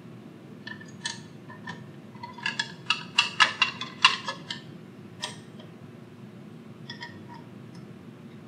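Light metallic clinks and taps as the ply separator's metal blade cover plate is set back onto the machine and its thumb nut handled. A quick cluster of clicks comes in the middle, and a few scattered ones follow near the end.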